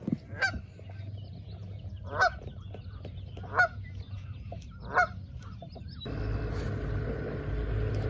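A waterbird honking four times, about a second and a half apart, each call short. About six seconds in, a steady low hum takes over.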